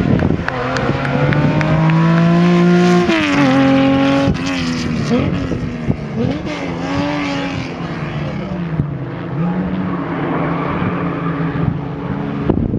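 Competition car's engine revving hard under acceleration, its pitch climbing and then dropping at two quick upshifts about three and four seconds in. The revs then rise and fall as the car works through the course and draws away, and the sound cuts off suddenly at the end.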